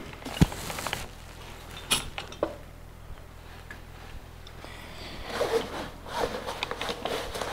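A metal hand plane being handled on a wooden workbench: a few sharp knocks in the first couple of seconds, then a soft scraping rustle in the second half.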